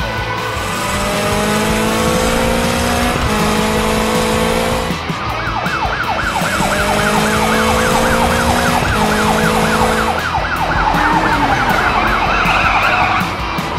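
Cartoon police siren warbling fast, about four rises and falls a second. It comes in about five seconds in and stops a little before the end, over background music and car sound effects.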